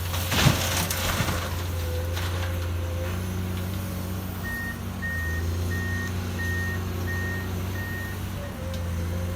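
Excavator engine running steadily, with a loud clank about half a second in and a lighter one just after a second. From about the middle, a backup alarm beeps six times at an even pace.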